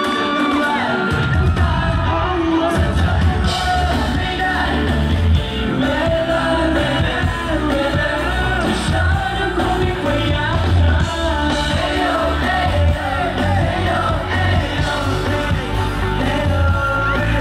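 Live Thai pop band performance: a singer over a full band, with heavy bass and drums coming in about a second in.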